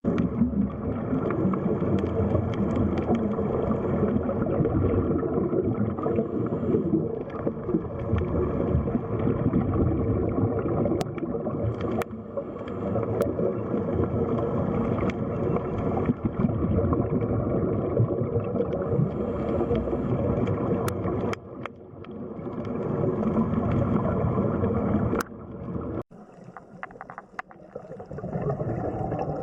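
Underwater water noise: a continuous rushing, gurgling wash with a few sharp clicks. It dips briefly a little over two-thirds of the way in and drops away suddenly near the end.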